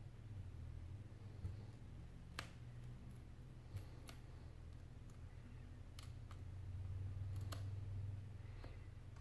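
A few sharp, isolated clicks and a faint scrape near the end as a thin metal pry tool works along the edge of an iPad 4's glued touchscreen, over a steady low hum.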